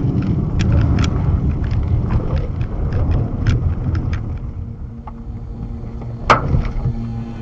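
A vehicle driving on a wet dirt road, its engine and tyres making a steady low rumble. Scattered sharp clicks come through the first half, and a single loud knock sounds about six seconds in.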